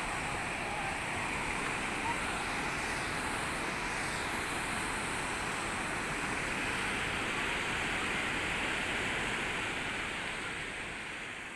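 A fast mountain river rushing over boulders in white-water rapids: a steady, dense rush of water that grows slightly fainter near the end.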